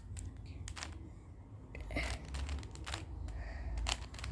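Rubik's cube being turned through a sequence of moves: a run of quick, irregular plastic clicks as the layers snap round.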